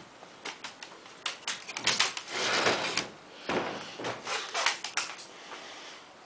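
A wooden door being rattled and slid: a run of clicks and knocks, with two longer scraping slides about two seconds in and again around three and a half seconds in.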